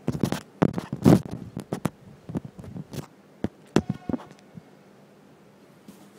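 Handling noise from a phone camera being adjusted on a floor: a scatter of clicks, knocks and rustles with a brief squeak, stopping a little after four seconds in.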